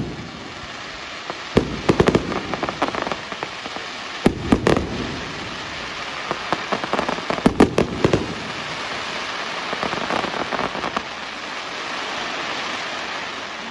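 Fireworks going off: three clusters of sharp bangs about two, four and eight seconds in, over a steady crackling hiss that swells in the later part.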